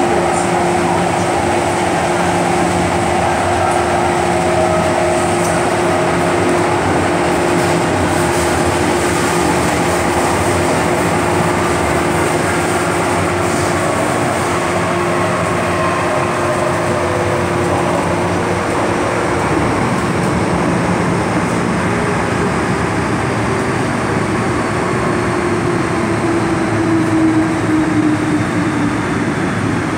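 Inside an MTR M-train electric metro car running between stations: steady wheel and running rumble with a steady motor whine. Near the end the whine drops in pitch as the train slows into a station.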